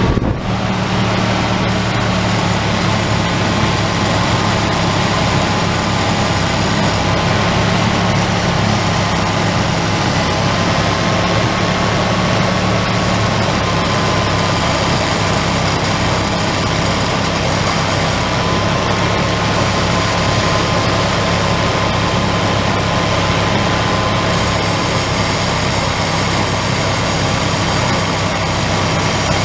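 1994 Chevy Silverado's 5.7-litre (350) V8 running steadily at a raised idle, its throttle held open by a pedal clamp while Seafoam treatment is being burned through it. A thin, steady whine sits above the engine hum.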